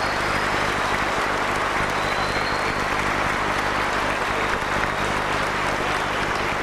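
Large audience applauding steadily, a dense, even clatter of many hands.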